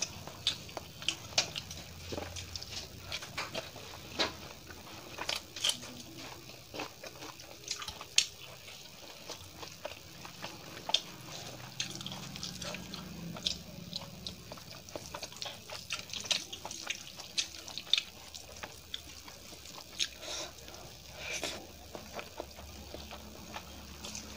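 Close-miked eating sounds: wet chewing and lip smacking with many irregular sharp clicks, along with fingers squishing rice into shahi paneer curry on a steel plate.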